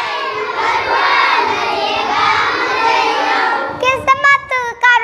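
A group of children singing together in chorus, many voices at once, in a Hindi school song. A little under four seconds in, the chorus stops and a single high voice sings the next line alone.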